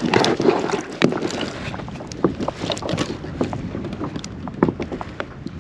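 Irregular clicks, knocks and rustles of gear being handled and tied onto a kayak, over a steady background of wind and water.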